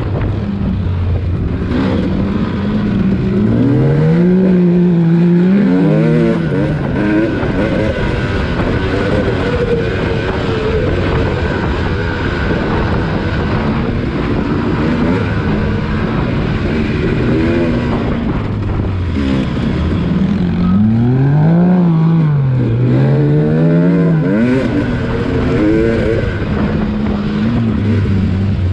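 Dirt bike engine riding hard on a sandy trail, its revs climbing and dropping again and again through gear changes and throttle, with the biggest swings a few seconds in and again about twenty seconds in.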